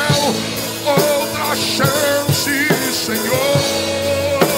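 A man singing a Portuguese gospel hymn into a microphone, holding long wavering notes, over a live band with steady drum-kit beats.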